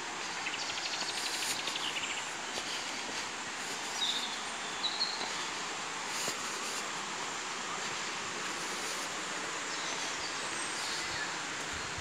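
Steady rushing of a forest waterfall heard from the trail above it. A fast high trill sounds in the first two seconds, and short high bird chirps come about four and five seconds in.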